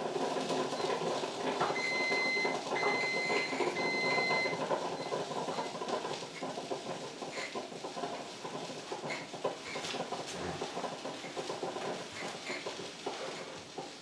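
Drip coffee maker finishing its brew cycle, with crackling and gurgling that fades after about six seconds. About two seconds in, its brew-complete alarm beeps three times in short, even, high-pitched beeps, signalling that the water has run through.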